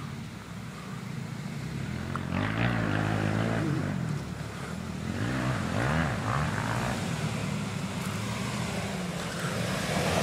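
Ford F-150 pickup's engine revving as it climbs a loose sand hill under load, its pitch rising and falling several times.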